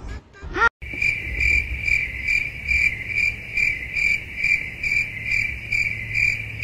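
Cricket chirping steadily at one unchanging high pitch, about two chirps a second, starting suddenly just under a second in: the stock 'crickets' sound effect used in comedy edits to mark an awkward silence.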